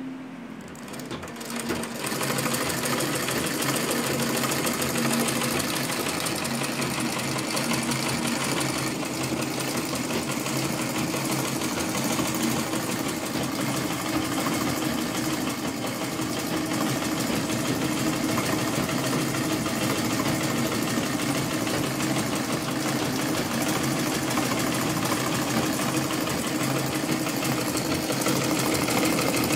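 Butterfly treadle sewing machine running, set going by hand at the balance wheel and kept going by pedalling the treadle. A steady, fast mechanical clatter that builds up over the first couple of seconds, then holds even.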